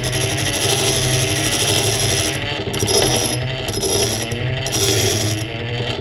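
Antique Metabo hand-cranked grinder running with a metal bar held against its wheel: a grinding hiss over a wavering whine, both swelling and fading about once a second with each turn of the crank.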